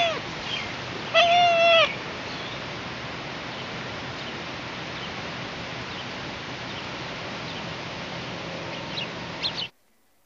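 An animal calling twice near the start, each call long and held on one pitch, the second dropping slightly at its end. Under the calls is steady background hiss with a few faint chirps. The sound cuts off suddenly near the end.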